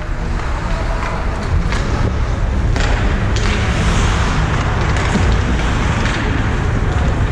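Ice hockey game sounds: a steady loud rumble of rink noise with a few sharp clacks of sticks or puck.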